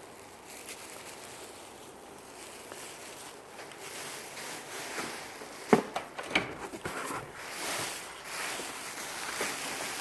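Plastic garment bags crinkling and rustling as dresses are handled, busier in the second half, with a couple of sharp clicks about six seconds in.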